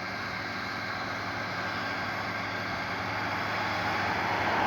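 Massey Ferguson 7718S tractor's six-cylinder diesel engine running steadily under load while ploughing, growing gradually louder.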